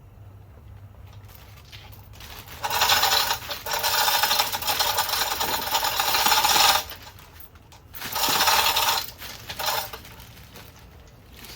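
A power tool, as used to remove fasteners in an engine teardown, running in two bursts. The first lasts about four seconds with a brief break; the second lasts about a second, with a short blip after it. Each burst starts and stops abruptly.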